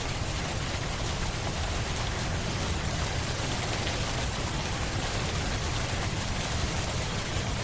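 Steady rain falling, an even hiss with occasional drop ticks and a low rumble beneath.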